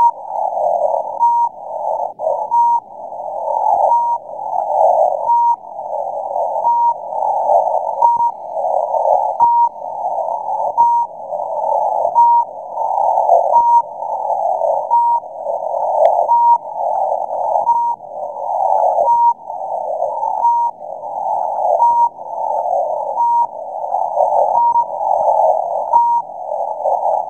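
Mysterious 'pip' signal on 6231 kHz shortwave, received in CW mode through a narrow 400 Hz filter: a short beep about every second and a half over a steady band of radio hiss. The signal is strong, peaking at S9 and more.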